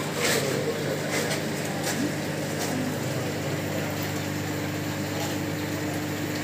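Steady low machine hum, with a few faint clicks and knocks over it.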